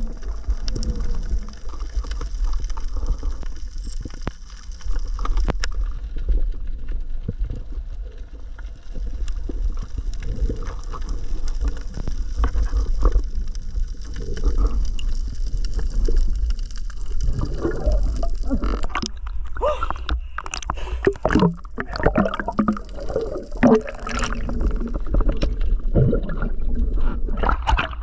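Water moving against a diver's action camera: a steady low rumble, then, about two-thirds of the way in, a run of splashes and knocks as the diver comes to the surface beside the boat.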